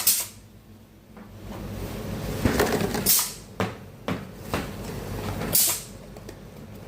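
Pneumatic valves of an ice cream filling machine cycling: three short hisses of compressed air venting, a few seconds apart, with sharp mechanical clicks between them. Each hiss is the valve exhausting air as a fill stops, which now happens at once after the faulty control valve was replaced.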